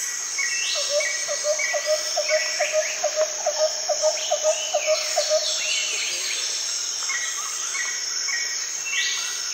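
Rainforest insects and birds: a steady high-pitched insect drone with a short chirp repeated about twice a second. For about four seconds in the first half a rapid run of lower calls, about four notes a second, joins in, along with scattered rising whistles.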